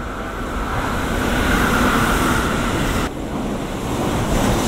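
Electric train passing at speed: a steady rush of wheels on rail with a faint whine on top, broken off abruptly about three seconds in and followed by a lower rush.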